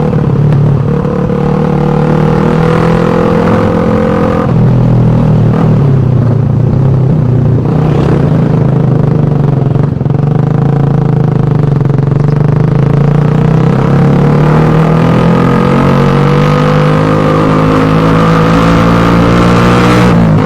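Suzuki Satria FU 150's single-cylinder four-stroke engine running through its exhaust, loud and steady. Its pitch drops slightly about four seconds in, then climbs gradually over the last few seconds as the revs rise a little.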